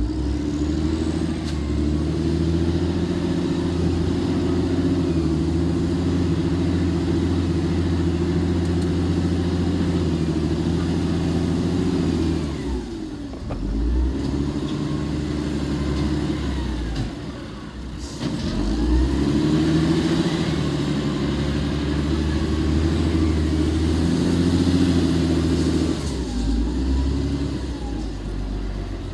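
An engine running steadily under load. It eases off about halfway through, dips again briefly, then picks back up.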